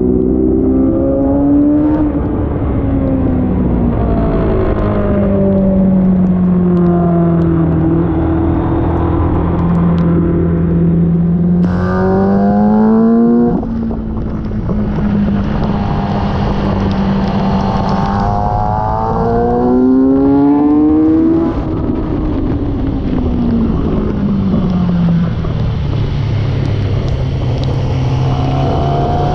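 Sport motorcycle engine being ridden hard on a race circuit, its note repeatedly climbing as it accelerates and dropping back, with abrupt gear-change breaks about 12 and 14 seconds in.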